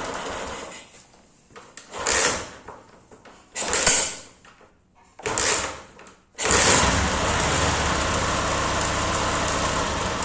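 Single-cylinder engine of a 2003 Honda CG Titan motorcycle that had been flooded: it dies out within the first second, gives three short bursts as it is restarted, then catches about six and a half seconds in and runs steadily.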